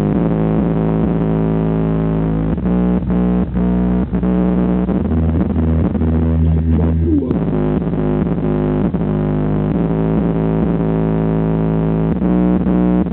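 Bass-heavy music played loud through a single 12-inch Alpine Type X car subwoofer, with a deeper bass note held for about two seconds a little past the middle.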